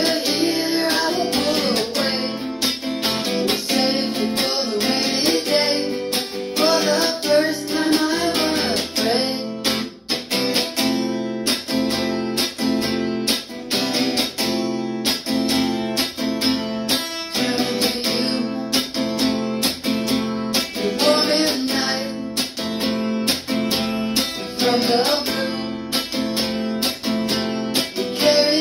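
A man singing over a strummed archtop hollow-body guitar, with a stretch of guitar alone in the middle.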